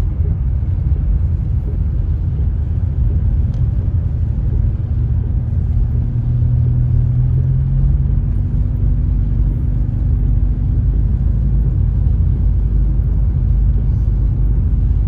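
Steady low rumble of a car driving, heard from inside the cabin: a low engine hum with tyre noise from the wet pavement.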